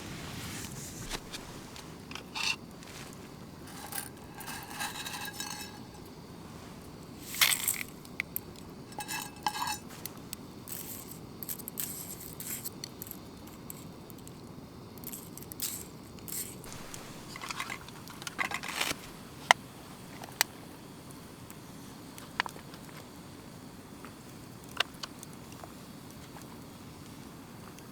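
Cookware and eating utensils clinking and scraping: scattered light knocks and clinks, some ringing briefly, over a steady low background rumble.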